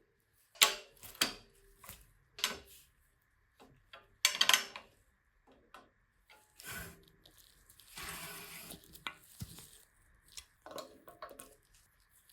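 Tools and small metal bicycle parts being handled on a workbench: a series of sharp clicks, clinks and knocks at irregular intervals, with a brief hiss about eight seconds in.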